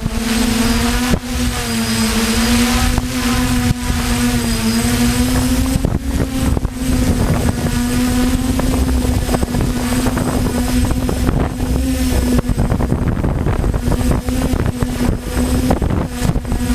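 DJI F450 quadcopter's brushless motors and propellers droning in flight, the pitch wavering up and down as the motors correct, then holding steadier. Wind buffets the microphone throughout with a low rumble.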